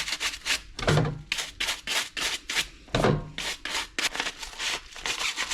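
A brush scrubbing a dishwasher filter in rapid back-and-forth strokes, about four to five a second.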